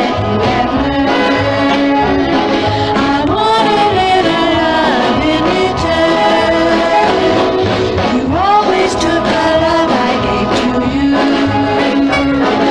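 Doo-wop vocal group singing in harmony over an up-tempo jump backing band with a steady beat.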